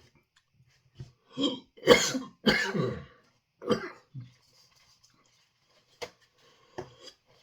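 A man coughing hard, a fit of about five loud coughs in quick succession, then a couple of smaller coughs near the end, from super-hot chilli dust caught in the back of his throat.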